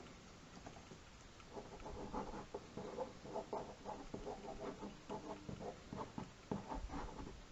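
Quick, scratchy drawing strokes on paper, dense and irregular, as the zombie sketch is worked over.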